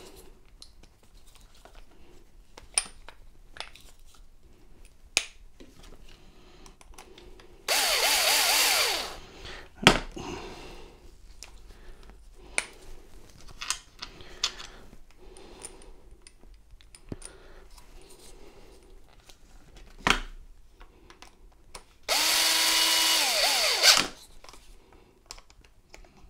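Black+Decker cordless drill/driver driving screws back into a motorcycle ignition switch housing. The motor runs twice, once about eight seconds in and again near the end, each time spinning up, holding for a second or two and winding down. Small clicks and handling taps come between the runs, with a sharp knock just after the first run and another shortly before the second.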